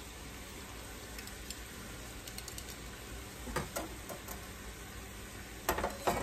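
Steaks sizzling in teriyaki sauce in an aluminum alloy frying pan, a steady sizzle with small scattered pops. A metal fork knocks and scrapes against the pan about three and a half seconds in, and again more loudly near the end as a steak is lifted out.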